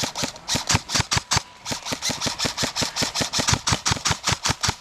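Airsoft gun fire: a rapid, steady string of sharp shots, about eight or nine a second.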